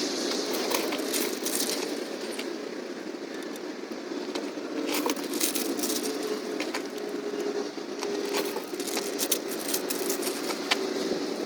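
Light clicks and rattles of gaskets being pressed into the ports of a truck's intake manifold by hand, over a steady background hum; the clicks cluster about halfway through and again near the end.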